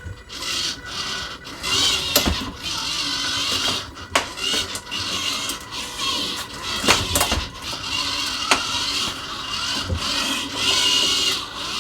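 Gear motors of a cable-driven robot arm whirring on and off in spurts as the arm moves, with several sharp clicks and knocks along the way.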